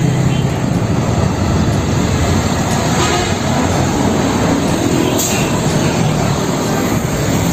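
Loud, steady road noise of a diesel car-carrier truck driving past at close range, engine and tyres on the road mixed with the rush of passing traffic.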